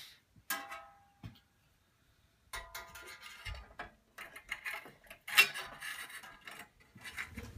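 A quarter-inch bimetal bandsaw blade being fitted over the saw's upper wheel: a brief metallic ring as the blade is flexed, then irregular clinks and rattles of the steel blade against the wheel and frame, with a sharper click about five seconds in.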